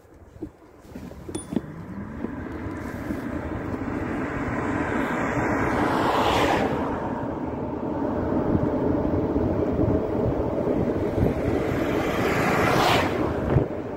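Two cars passing close on a narrow road, each swelling to a brief whoosh, about six and a half seconds in and again near the end, over a steady rushing road noise.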